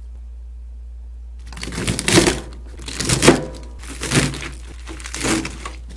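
Kitchen knife cutting through komatsuna (Japanese mustard spinach) stalks and leaves onto a white cutting board: four crunching cuts about a second apart, starting about a second and a half in.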